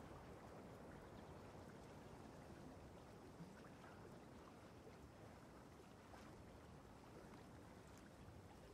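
Near silence: faint steady room-tone hiss with a few faint ticks.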